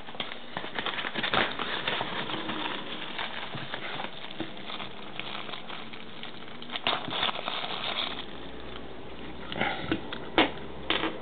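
Close handling of small plastic remote controls: rustling with scattered clicks and taps, a few sharper ones about seven seconds in and near the end.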